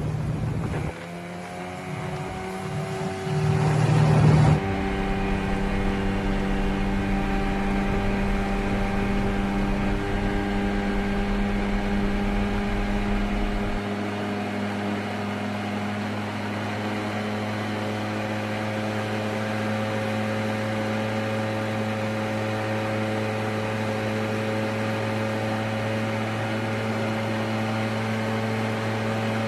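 Boat engine running at speed with a steady hum. Its pitch rises over the first two seconds, and there is a brief loud rush of noise about four seconds in.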